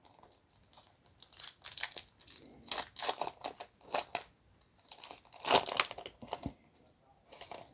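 Foil wrapper of a 2010 Topps Chrome baseball card pack being torn open and crinkled, in irregular crackling bursts that are loudest about five and a half seconds in.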